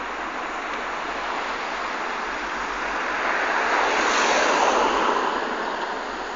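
A road vehicle passing close by: tyre and engine noise swells to a peak about four seconds in, then fades.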